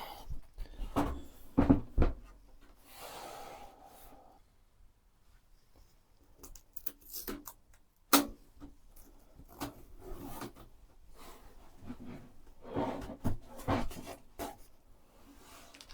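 Hands handling PC build parts: scattered clicks and knocks, with a short scraping rub about three seconds in.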